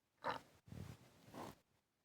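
Human stomach gurgling: a short, sharp squelch about a quarter second in, followed by two lower, rumbling gurgles, then a brief pause near the end.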